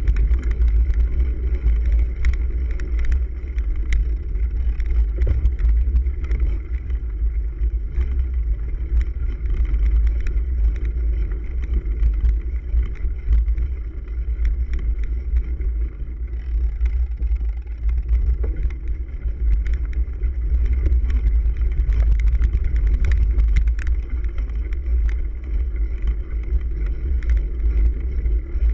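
Heavy low rumble of wind and road vibration on a handlebar-mounted camera on a cyclocross bike riding over bumpy grass and dirt, with frequent small clicks and rattles from the bike and mount jolting over the rough ground.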